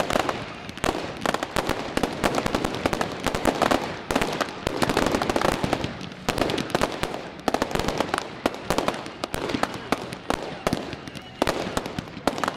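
Fireworks display: a dense, continuous barrage of rapid bangs and crackles from ground-launched comets and small aerial bursts, over a steady hiss.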